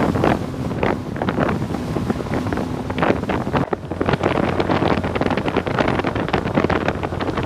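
Heavy wind buffeting the microphone of a boat under way, with the boat's motor running steadily underneath.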